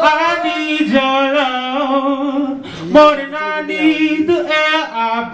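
A man singing a slow vocal line into a microphone: long held notes with vibrato and gliding runs between them, with a short break about three seconds in.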